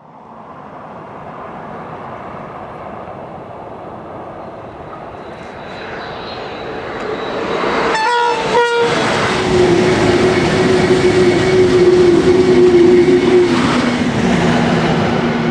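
High-speed train approaching and passing at speed: a rushing noise builds steadily, two short horn blasts sound about eight seconds in, and the pass-by peaks with a steady tone that drops in pitch near the end as the train goes by.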